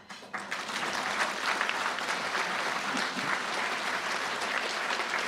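Audience applauding: the clapping starts at once, swells within about half a second and then holds steady.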